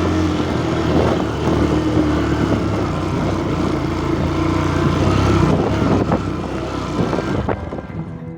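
Motorcycle engine running steadily under a noisy rush of wind, fading away near the end.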